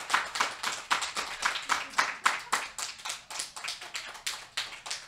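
Audience applause: quick hand claps at about four to five a second, dying away toward the end.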